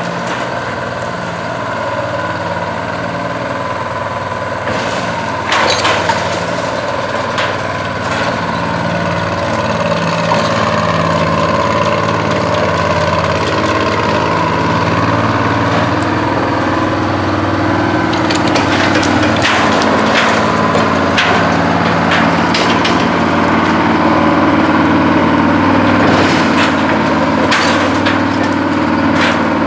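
Bucyrus-Erie 22B cable shovel's engine running steadily while working a clamshell bucket, with sharp clanks and cracks about six seconds in and again in clusters later on.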